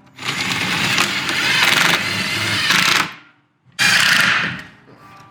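BMW M4's engine started and revved: a loud run of about three seconds, a short break, then a second shorter burst.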